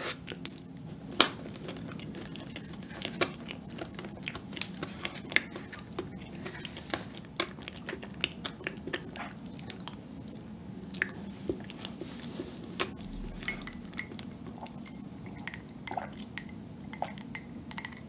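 Close-miked eating of soft chilled dessert off a wooden spoon: wet chewing with many small sticky clicks and lip smacks.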